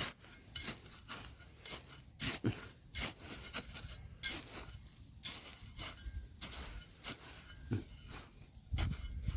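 Irregular scraping and scratching from digging through gravel and rock, with many short sharp scrapes and clicks at an uneven pace.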